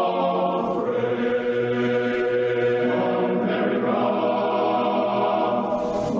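A choir singing long held chords, the chord changing about a second in and again around three seconds in.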